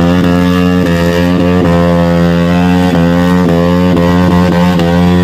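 TVS Apache RR 310's single-cylinder engine held at high revs in a burnout, running loud and steady, mixed with background music with guitar.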